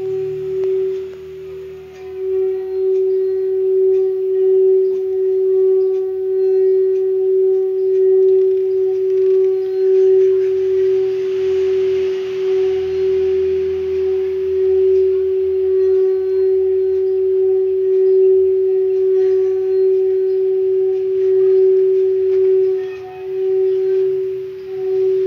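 Singing bowl rubbed around its rim, giving off a loud, steady ringing tone that swells and eases in gentle pulses as the rubbing goes round.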